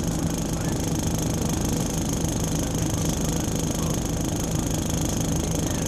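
Scania K340 coach's diesel engine idling, a steady low hum with a constant high whine above it, heard from inside the passenger cabin.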